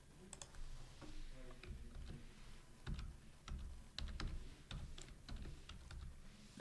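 Computer keyboard keys tapped as a password is typed: a faint string of short, irregular key clicks.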